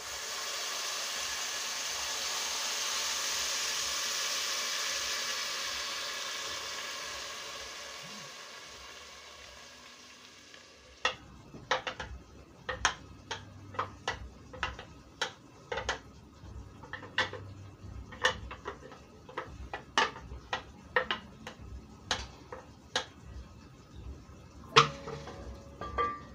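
Liquid poured onto onions frying in a hot aluminium pot sizzles loudly and dies away over about ten seconds. Then a wooden spoon stirs in the metal pot, knocking against its side about once or twice a second.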